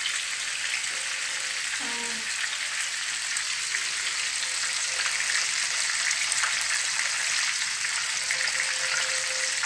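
Fish fillets frying in hot oil in a frying pan: a steady sizzle with scattered small crackles.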